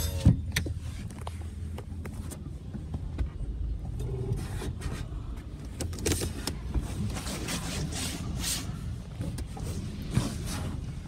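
SUV engine idling, heard from inside the cabin, with a sharp click shortly after the start. From about six seconds in, a Washworld Razor touchless car wash sprays the vehicle, making several hissing gusts that come and go.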